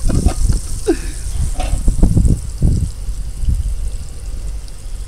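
Sucuk frying in a pan with a steady sizzle, under irregular low thumps and rumbles that die down after about three seconds.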